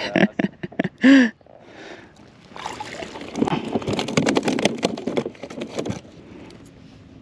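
Water splashing, with clicks and knocks against a kayak hull, as a hooked black sea bass is brought to the side and lifted aboard. The splashing and handling noise is heaviest between about three and six seconds in.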